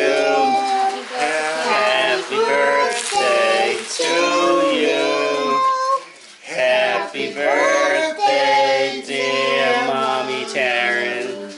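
Singing: voices carrying a melody over steady held low notes.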